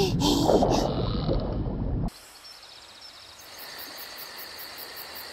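Cartoon underwater sound effects: bubbling water with a few short squeaky pitch glides. About two seconds in it cuts off suddenly to a faint hiss with a soft high chirp repeating a few times a second.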